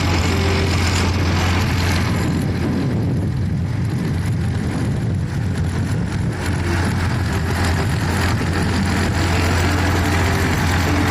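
J.I. Case 1070 tractor's six-cylinder diesel engine running at a steady speed: a constant low drone with a broad rushing noise over it.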